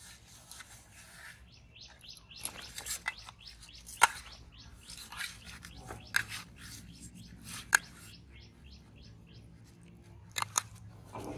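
A hand kneading and squeezing fish bait in a steel bowl: wet squelching and scraping, with sharp clinks against the metal bowl several times, two close together near the end.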